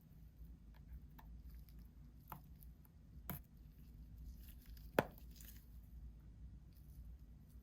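Small scattered clicks and ticks of pry tools working around the edge of an iPhone XR's glued-down screen, with two sharper clicks about three and five seconds in, the second the loudest.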